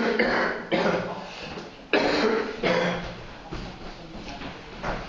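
A person coughing: three loud, harsh coughs in the first two seconds or so, each starting suddenly and trailing off.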